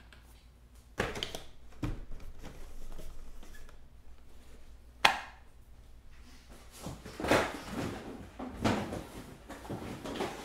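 A few sharp knocks and clicks, the loudest about five seconds in, with rustling handling noises near the end.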